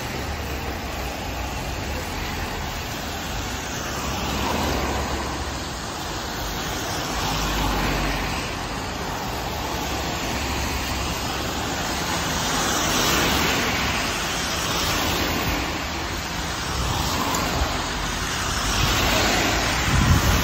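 Road traffic on a rain-wet street: cars and a city bus pass one after another, tyres hissing on the wet asphalt over a low engine hum, swelling and fading with each vehicle. Near the end, wind buffets the microphone.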